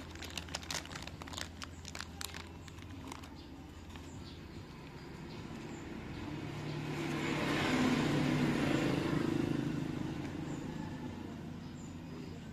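A quick run of light clicks in the first three seconds, then a motor vehicle passing by, its engine and tyre noise swelling to a peak about eight seconds in and fading away.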